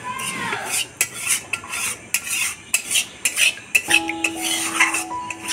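Metal spoons and steel kitchen utensils clinking and scraping against pots and bowls, in quick irregular knocks.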